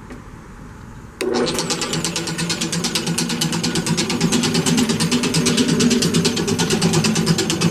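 Hobart 20-quart commercial mixer switched on about a second in, then running steadily. Its motor and gear drive give a hum with a fast, even clatter.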